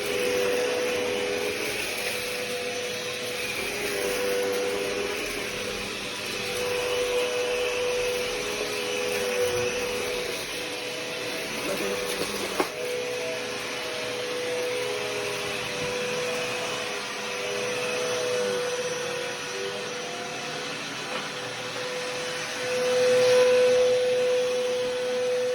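Eureka The Boss Power Plus upright vacuum cleaner running while vacuuming, with a steady motor whine whose pitch dips and rises a little. There is a single sharp click about halfway through, and the sound briefly gets louder near the end.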